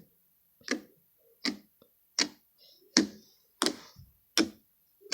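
Stiff fingers poking into slime at a steady pace, about one sharp, wet poke every three-quarters of a second, six or seven in all.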